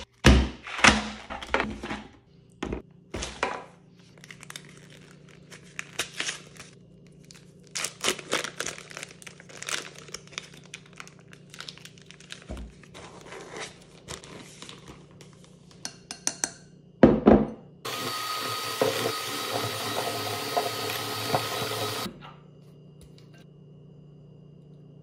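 Close-up kitchen handling sounds: packaging rustling, then a foil cream cheese wrapper crinkled and peeled, and two knocks. An electric hand mixer then runs steadily for about four seconds, beating cream cheese in a glass bowl, and cuts off suddenly.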